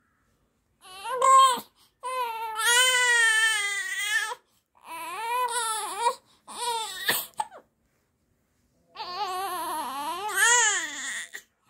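A baby crying in a string of high-pitched wails with short breaks between them. One long wavering wail comes about two seconds in, and a last wail rises and falls near the end.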